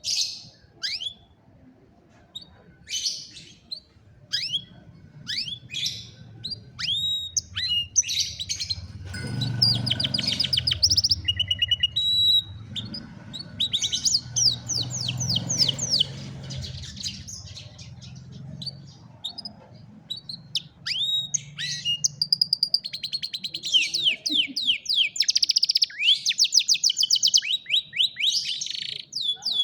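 Domestic canary singing: short chirps and sweeping whistled notes broken by fast trills of rapidly repeated notes, the longest trill run coming near the end.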